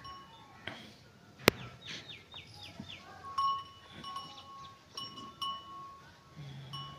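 Livestock-yard animal sounds: short calls and chirps, with a run of quick falling chirps about two seconds in and a sharp click just before them.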